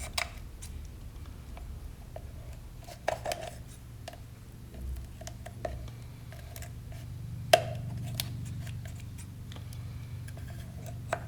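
Scissors snipping thin flashing off a freshly cured resin sculpture: scattered sharp snips, the loudest about halfway through.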